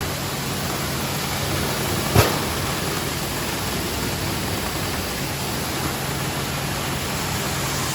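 Maize grits milling machinery running steadily: an even, loud noise over a low hum, with one sharp knock about two seconds in.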